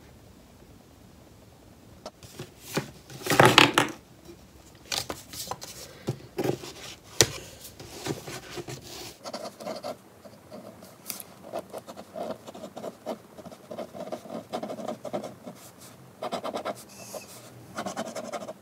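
Paper card and craft materials being handled on a desk: rustling and rubbing, with a louder rustle about three and a half seconds in, then a run of short, irregular scratching strokes.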